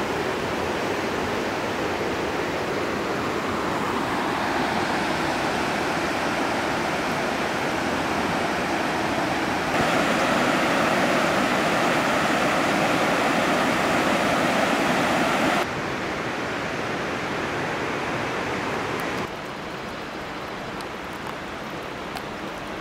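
Rushing water of the North Fork Skokomish River, a steady hiss of current and rapids. About ten seconds in it gets louder and brighter for some five seconds, then steps down twice to a softer rush near the end.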